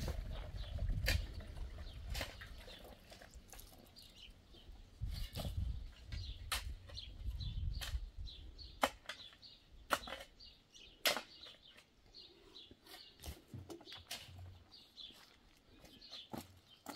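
Irregular sharp knocks and clicks, with a low rumble through the first half that fades out.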